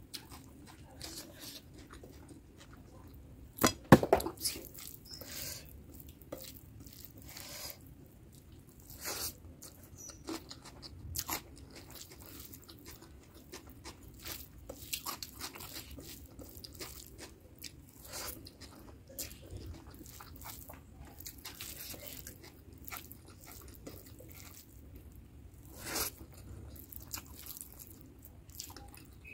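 Close-up eating sounds of a person eating mutton curry and rice by hand: chewing, small wet mouth clicks, and fingers squishing and mixing the rice and curry on the plate. There is one much louder sharp knock about four seconds in.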